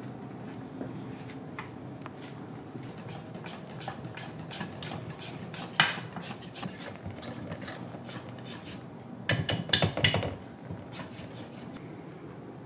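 Wire whisk scraping and clicking against a stainless-steel bowl as cream is whipped by hand, with a louder run of rapid clicks about nine to ten seconds in.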